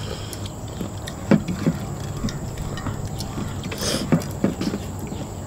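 Scattered small clicks and taps of people eating with their hands from plates, picking at fried salted fish and rice, with some chewing.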